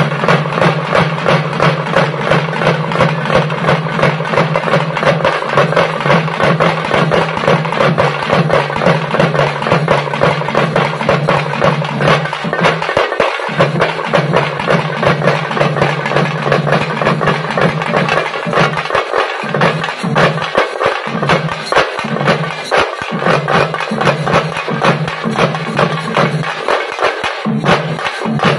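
Parai frame drums beaten by a troupe in a fast, steady rhythm.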